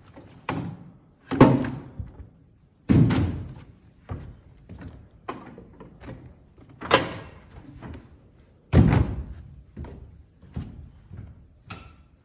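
Folding seats on retractable telescopic bleachers being pushed down one after another, each landing with a clunk. About five loud clunks, with lighter knocks between them.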